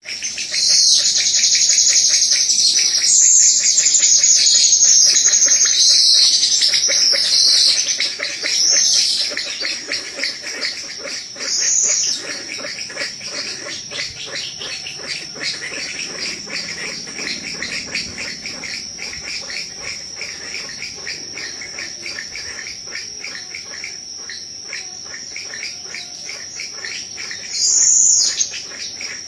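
Insects, crickets or similar, trilling steadily at a high pitch with a fast pulsing, mixed with a few bird chirps. The chirring is louder for the first several seconds and swells briefly a few more times, near the middle and near the end.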